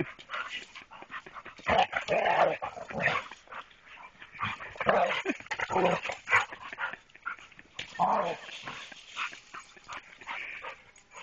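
Dogs making play noises: short barks and yips that come in bursts, about two, five and eight seconds in.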